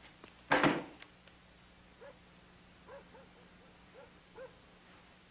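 Animal calls: one loud call about half a second in, then a string of soft, short calls in small groups.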